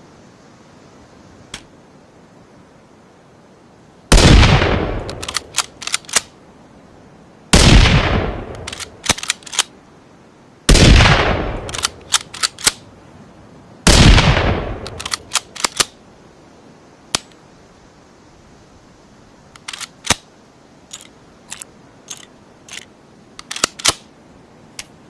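Rifle sound effect blending a Ruger American rifle with a rimfire rifle: four shots about three seconds apart, each with a long fading tail followed by a quick run of sharp clicks, then more scattered clicks near the end.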